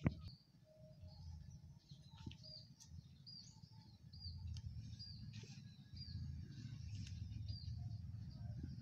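A small bird chirping in the background: a run of short, high, repeated notes about every half second, faint over a steady low rumble. A sharp click right at the start is the loudest sound.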